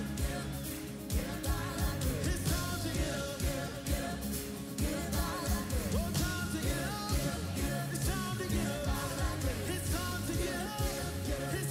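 Upbeat worship song: singing over a band with a steady drum beat.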